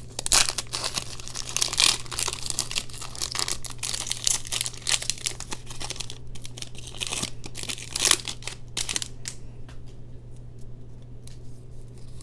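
Foil booster-pack wrapper being torn open and crinkled by hand: dense crackling and ripping that dies down to a few faint rustles about nine seconds in.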